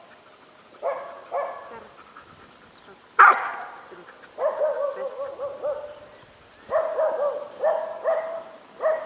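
Dog barking and yipping in short bursts: single barks, a loud sharp one about three seconds in, then quick runs of yips several to a second.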